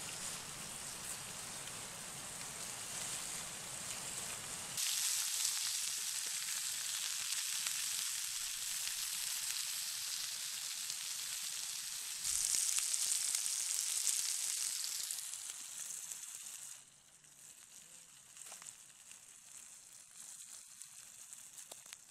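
Burgers, mushrooms, carrot and onion sizzling as they fry in a pan over a wood fire, a steady hiss that grows louder in steps and drops much quieter about 17 seconds in.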